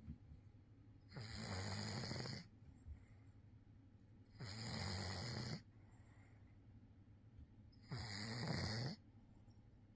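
Maine Coon cat snoring in its sleep, three long snores about three seconds apart, deep and like an old man's.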